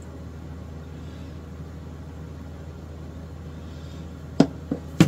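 Steady low hum, with three short knocks near the end as the guitar neck is handled on the workbench.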